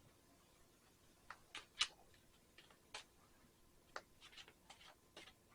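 Faint, irregular small clicks and taps, about a dozen scattered through an otherwise near-silent room.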